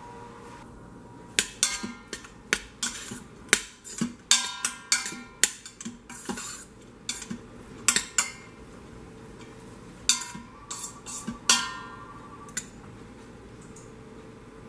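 Metal spoon stirring cooked buckwheat in a stainless steel pressure-cooker pot, clinking and scraping against the pot wall many times with brief metallic ringing, stopping near the end.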